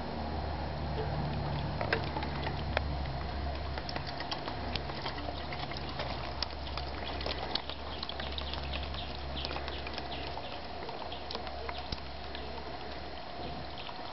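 Water trickling and pattering as hose water runs off a greenhouse gutter and down a guide cord into a bucket, with many irregular drips and small splashes. A low rumble runs underneath and fades near the end.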